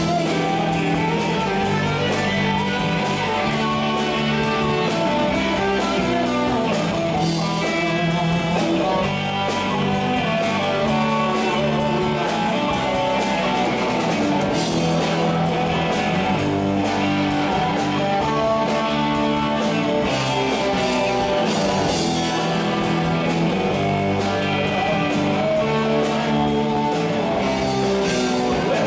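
Live rock band playing a song: guitar over a drum kit, playing steadily without a break.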